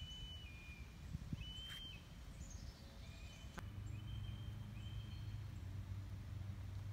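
Outdoor background with birds calling in short, thin whistled notes, a few at a time. Under them is a low steady hum that grows louder about four seconds in, and there is one sharp click midway.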